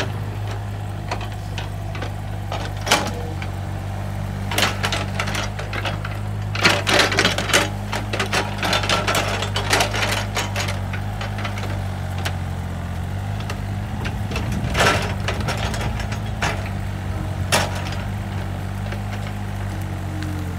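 Takeuchi TB135 mini excavator's diesel engine running steadily, with scattered sharp clanks and knocks as the bucket digs into soil and brush, thickest in a busy run of rattles about seven to ten seconds in.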